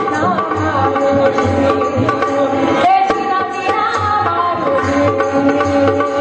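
A woman singing a folk song into a microphone with a wavering melody, accompanied by a tabla playing a steady rhythm and held tones underneath.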